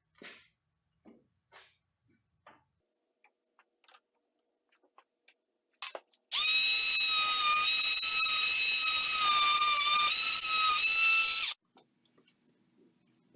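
A small power tool motor whining steadily for about five seconds, starting about six seconds in and cutting off suddenly, with a slight sag in pitch partway through. Light clicks and knocks of handling come before it.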